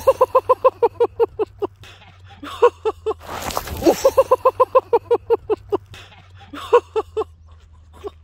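A person laughing hard in several fits: rapid runs of 'ha-ha-ha' that trail off, broken by gasping in-breaths.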